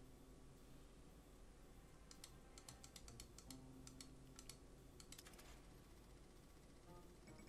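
Near silence broken by two short runs of faint rapid clicks from a computer keyboard or mouse, about two seconds in and again at four and a half seconds.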